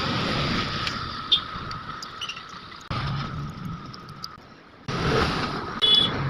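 Sharp metallic clicks and taps of hand tools on scooter engine parts, with one ringing metal clink near the end, over a steady hum and two surges of rushing noise.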